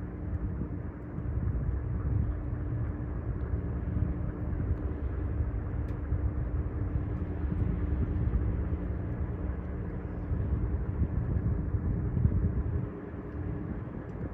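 Steady low engine rumble with a constant hum, dropping off near the end.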